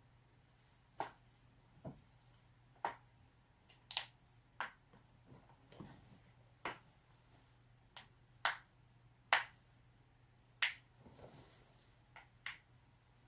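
Joints being cracked: more than a dozen sharp pops and clicks, unevenly spaced, some louder than others, over a faint steady hum.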